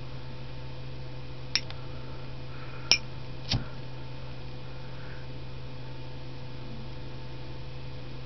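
Three light metallic clicks from a Zippo lighter's hinged lid against its case as it is held almost closed over the flame, heard over a steady low hum.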